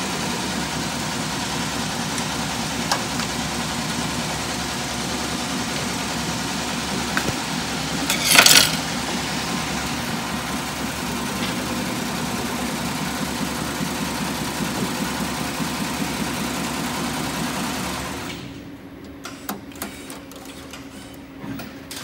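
Embroidery machine running steadily, dropping away about 18 seconds in, with one brief louder rasping noise about 8 seconds in.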